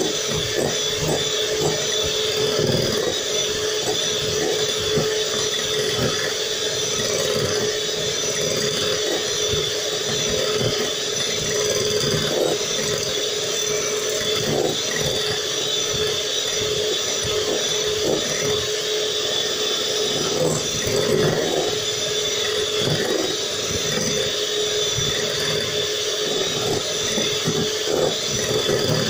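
Electric hand mixer running at a steady speed, its beaters whipping egg whites into a foam in a glass bowl: a constant motor whine with the churning of the beaters underneath.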